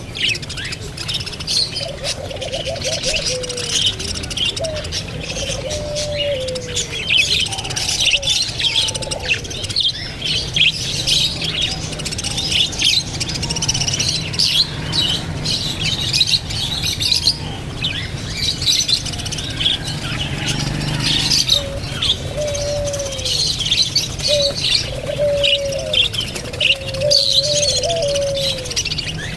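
Many birds chirping and twittering in a dense, continuous chorus of short high calls. Lower calls, each sliding down in pitch, come in runs during the first few seconds and again near the end.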